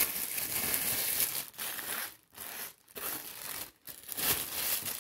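Thin plastic bag worn over a hand crinkling as the hand moves and presses, steady at first, then in shorter spells broken by brief pauses.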